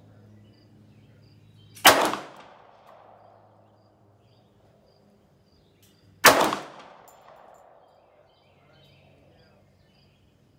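Two single semi-automatic pistol shots about four seconds apart, each a sharp crack followed by a short echo dying away.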